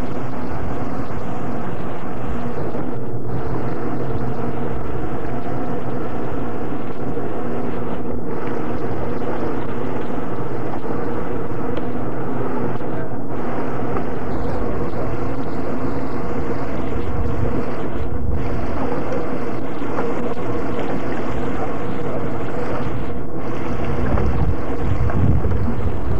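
Small fishing boat's engine running with a steady hum, with a few stronger low rumbles on the microphone near the end.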